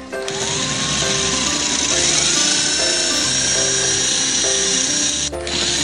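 Cordless drill with a 1/4-inch diamond bit grinding into a glazed ceramic pot, its motor whining and rising in pitch as it spins up about a third of a second in, stopping briefly near the end and starting again. Background music plays underneath.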